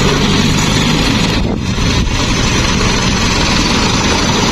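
Truck engine running steadily, with a brief dip about a second and a half in.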